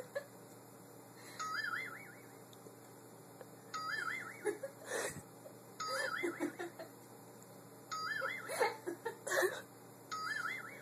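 A short electronic warbling alert tone, like an alarm or phone alert, repeating five times at about two-second intervals. Short sharp sounds come between the alerts in the second half.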